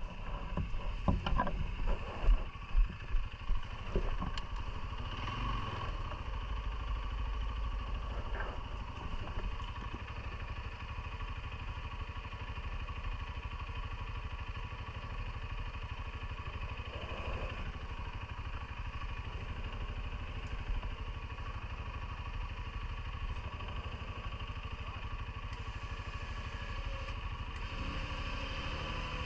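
CFMoto ATV engine running steadily as the quad is ridden, with a series of loud knocks and clatter in the first few seconds.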